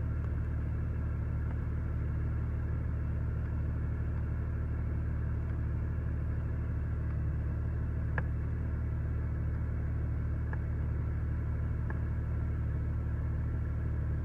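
A vehicle engine idling with a steady low hum, with a few faint clicks in the second half.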